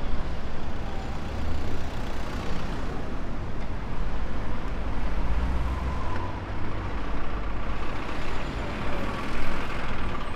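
Street traffic: vehicle engines and road noise with a steady low rumble.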